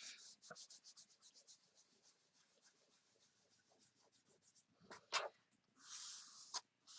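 Wet board eraser rubbing chalk paste off a chalk board in quick back-and-forth strokes, about six a second, fading out within the first couple of seconds. Near the end come a couple of knocks and a short hiss.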